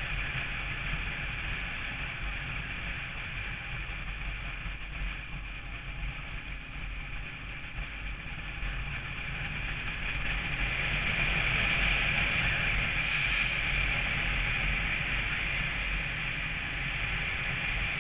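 Steady driving noise from a moving vehicle, heard through an onboard camera: wind rushing over the microphone with a low rumble of engine and road. It grows louder about ten seconds in.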